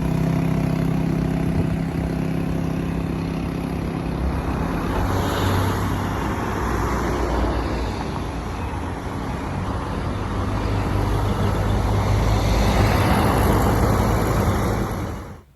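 A motor vehicle running, with a steady low engine note under a loud rushing noise of travel that swells and eases, cut off abruptly at the end.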